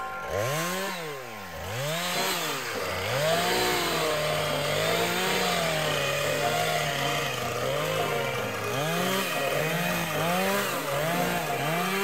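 Small gas engine revving up and falling back over and over, about once a second, holding steadier for a few seconds in the middle, with music faintly underneath.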